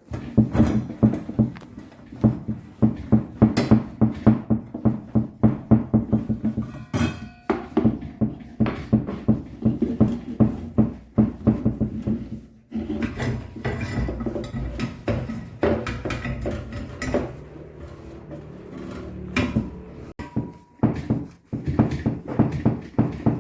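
Repeated metallic strokes of a hand tool, about three a second, in several short runs broken by cuts.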